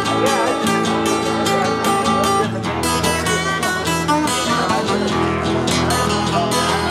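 Live acoustic guitar music: two acoustic guitars strummed in a steady rhythm, played through a small PA.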